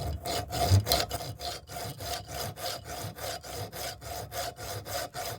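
Hacksaw cutting through the pressed-on metal top of a solenoid in quick, even back-and-forth strokes, with a steady ringing tone from the metal under the strokes.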